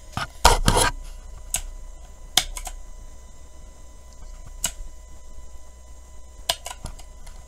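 Scattered sharp clicks and knocks, about seven in all, the loudest a short clattering knock with a dull thud about half a second in, over a faint steady hum.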